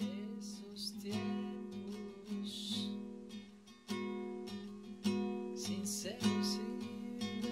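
Background music: strummed acoustic guitar under a melody that slides in pitch, over a held low note.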